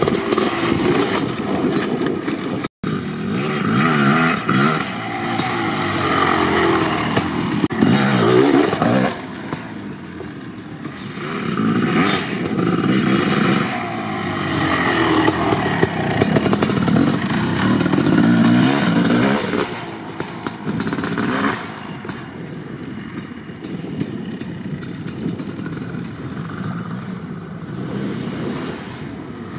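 1990 Kawasaki KX500's single-cylinder two-stroke engine with an FMF Gnarly expansion-chamber pipe, revving hard in repeated surges as the dirt bike is ridden over jumps. The revs rise and fall over and over through the first twenty seconds, then the engine runs quieter and steadier.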